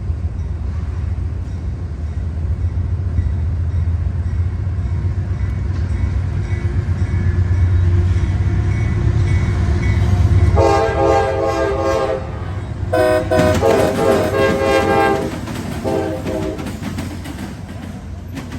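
CSX freight train rumbling, then its locomotive horn sounding two long blasts and a short one, starting about ten seconds in.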